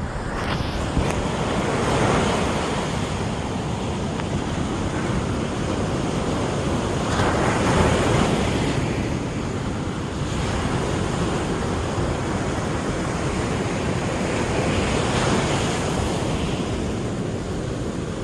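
East Sea surf breaking on a beach: a steady wash of waves that swells as a breaker comes in about two seconds in, again around seven to eight seconds, and near fifteen seconds.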